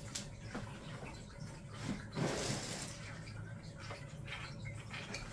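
Faint rustling and small taps from hands handling a cardboard box and treats, with one louder rustle about two seconds in.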